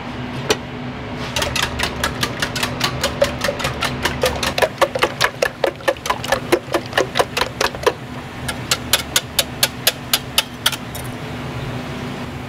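A metal ladle striking a wok in a quick steady rhythm, about four or five strikes a second, pausing briefly, then going on for another couple of seconds, over the steady hum of the kitchen burner and extraction fan.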